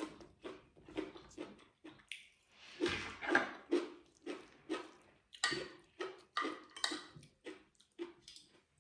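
Close-miked chewing and wet lip-smacking from a mouthful of stir-fried pork and bok choy, short mouth sounds about two to three a second, with the spoon and fork scraping the plate.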